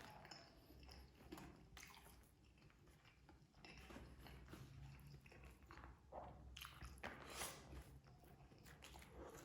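Faint close-up chewing and biting of a rice meal: wet mouth sounds with scattered small crunches, and a louder crackle about seven seconds in.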